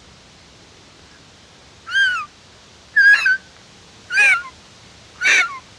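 Blade of grass stretched between the thumbs and blown through, the grass vibrating: four short, high whistles about a second apart, each bending up and then down in pitch.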